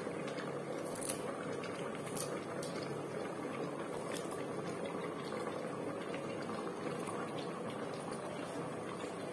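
A pot of yellow soup boiling: steady bubbling, with a few small sharp pops.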